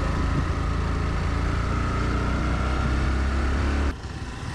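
Motorcycle running steadily on the road, with wind and road noise. The sound drops away suddenly about four seconds in and carries on quieter.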